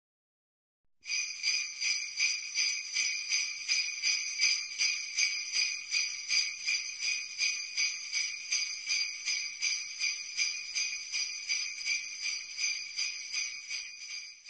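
Jingle bells shaken in a steady rhythm, about two to three shakes a second, starting after a second of silence and fading out at the very end.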